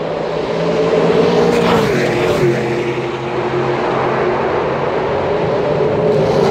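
A race car engine running hard out of sight as a car approaches the corner, its note rising and falling with gear changes and dipping in pitch about two and a half seconds in and again near the end.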